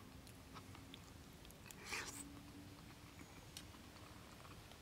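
Quiet chewing of a mouthful of stir fry, with faint clicks and a brief hiss about two seconds in, over a faint steady hum.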